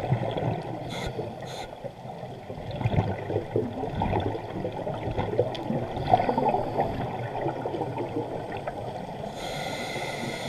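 Underwater scuba diving sounds heard through a camera housing: a diver's regulator bubbles gurgling and burbling, with a short hiss near the end.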